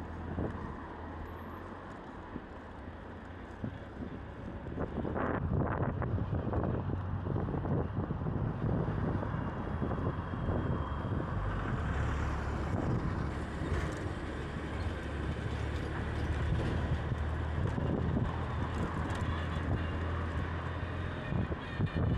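Street traffic noise, with wind rumbling on the microphone, getting louder about four seconds in.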